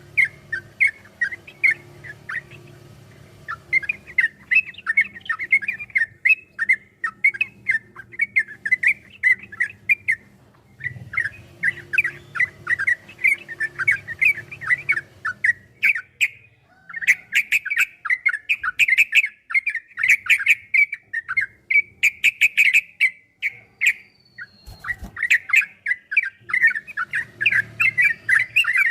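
Yellow-vented bulbul (trucukan) singing a long, rapid, chattering song of quick runs of notes, with short breaks about ten, sixteen and twenty-four seconds in.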